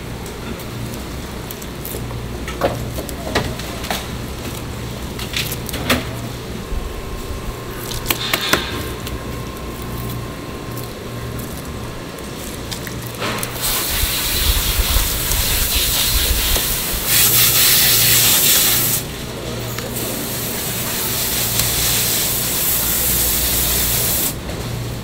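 A long sushi knife scraping and tapping against a fish and a plastic cutting board, sharp clicks over a steady low hum. About halfway through, a stream of tap water pours onto the fish to rinse it, a loud steady hiss that dips briefly and then cuts off just before the end.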